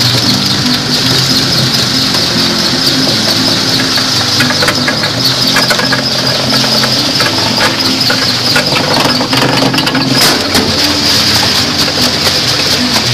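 Stone crusher with twin spiral-toothed rollers running with a steady mechanical drone and hiss as a stone block is fed in. A spell of sharp clicks and scraping comes in the middle as the stone grinds against the steel.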